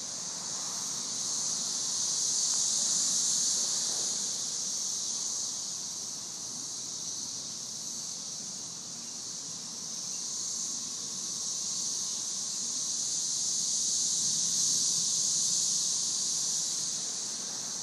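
A chorus of periodical cicadas, a dense high-pitched whine from many insects at once. It swells and eases in slow waves: louder a few seconds in, dipping near the middle, and louder again later.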